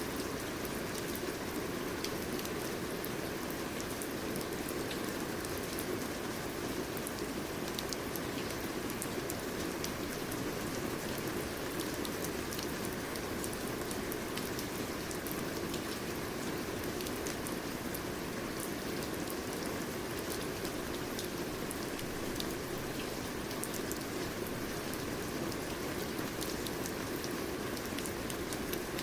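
Steady rain falling, with many individual drops pattering on a surface over an even hiss.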